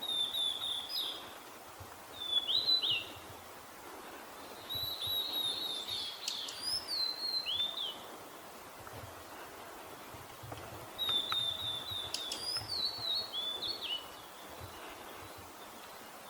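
A songbird singing: four phrases of clear whistled notes with quick slurred turns, separated by pauses of one to three seconds, with thin very high notes above.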